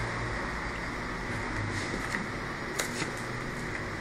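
A plastic laptop being handled, closed and turned over, with a couple of light clicks about three seconds in, over a steady background hum.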